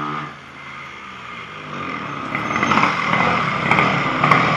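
Tomos A55 moped's small two-stroke engine running and revving, growing louder about halfway through.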